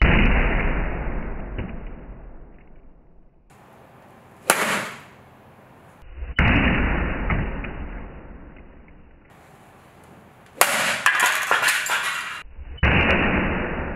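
A series of five hard impacts as a golf club strikes a full-face motorcycle helmet weighted with a sandbag. Three come as long, low booms that fade slowly, and two as short, sharp cracks with a glassy, breaking edge.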